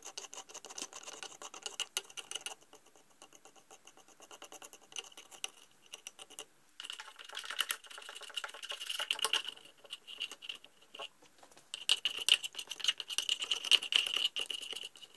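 Screwdriver scraping light, flaky rust scale from the inside of a trash pump's rusted housing, the loosened flakes clicking and pattering down onto a towel. The scraping turns into longer, scratchy strokes in the second half.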